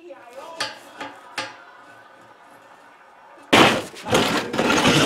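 A few faint clicks of metal being handled. About three and a half seconds in, loud irregular clattering and scraping of steel box section being shifted across a steel workbench.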